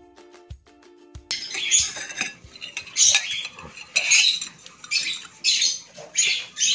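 A metal fork scraping and clinking against a glass bowl in a series of short, loud, high-pitched strokes.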